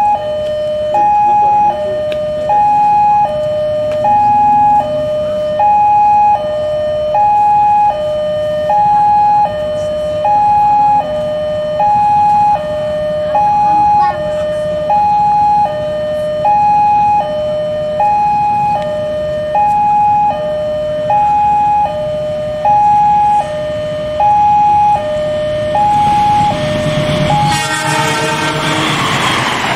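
Railway level-crossing warning alarm: an electronic signal alternating steadily between a higher and a lower note, about one high-low pair every second and a half. Near the end it stops and the loud rushing noise of a passing passenger train takes over.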